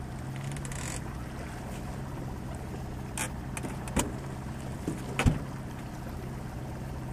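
Outboard motor running steadily with a low hum. A few sharp knocks in the middle, the loudest about five seconds in.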